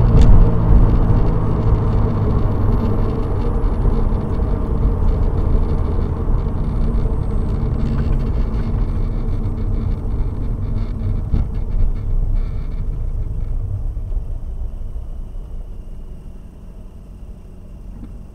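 Engine and road noise heard inside a Subaru BRZ's cabin as the car drives and slows down, with a steady low engine drone. It grows steadily quieter over the last few seconds as the car comes nearly to a stop.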